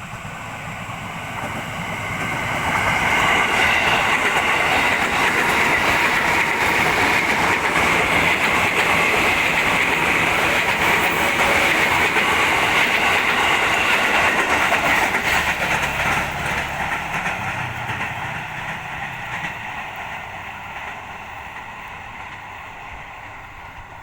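KRL Commuter Line electric train passing by, its wheels clattering over the rail joints. It builds over the first three seconds, stays loud for most of the pass, then fades away over the last several seconds.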